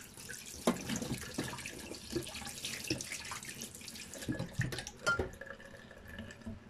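Kitchen mixer tap running into a stainless steel sink while a spatula is rinsed under the stream, with a few short knocks. The tap is shut off about five seconds in.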